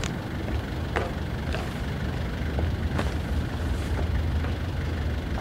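London black cab's diesel engine idling: a steady low rumble, with a few faint clicks over it.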